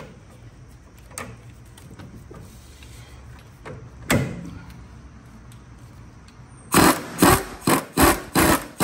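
Long ratchet and socket on the 15 mm top nut of a Ford Explorer rear sway bar link. A couple of metal knocks come first, one loud with a short ring. About seven seconds in, the ratchet is worked back and forth to unscrew the nut, giving a quick burst of clicking on each stroke, two to three strokes a second.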